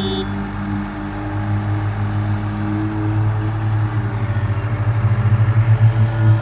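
Heavy diesel machinery running: a slipform concrete paver laying a road divider, fed by a transit mixer truck. A steady low engine hum grows louder and takes on a fast throb in the second half.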